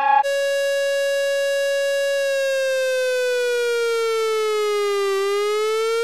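South Korean emergency alert tone: a buzzy electronic note that holds steady, then slowly sinks in pitch and rises again.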